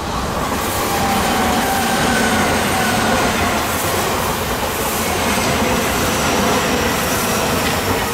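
Odakyu electric train passing close by at the railroad crossing, loud and steady as it goes by, with wheel clatter over the rail joints. A faint whine falls in pitch in the first few seconds.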